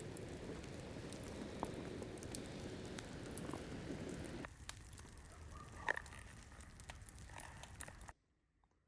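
Faint campfire crackling, scattered small pops over a soft outdoor hiss. About four and a half seconds in it cuts to quieter ambience with one brief sharp sound, then to silence shortly before the end.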